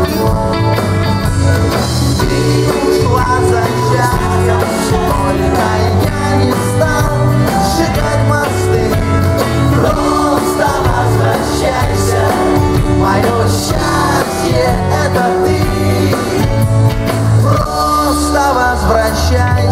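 A live rock band playing through a stage PA: electric guitars, electric bass and drums in a steady, full mix.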